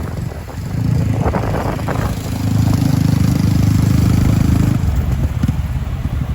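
Motorbike engine running underneath a rider on the back of a moving motorcycle taxi. A louder, steady engine note holds from about two and a half to nearly five seconds in.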